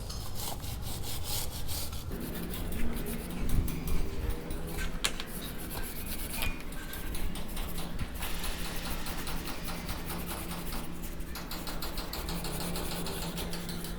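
Stiff brush scrubbing a dirty motorcycle drive chain (Bajaj Dominar 400) in rapid, repeated back-and-forth scraping strokes.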